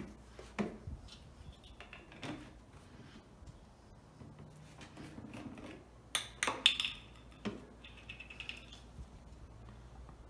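Scattered light clicks and knocks, the loudest cluster about six seconds in.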